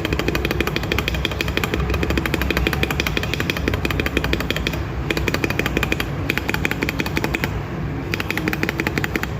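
Space bar of a mechanical keyboard fitted with Akko Clear ASA-profile keycaps, pressed over and over in quick succession with a few short pauses. Each keystroke gives a click; the sound is solid and deep ("rất đầm") rather than ringing.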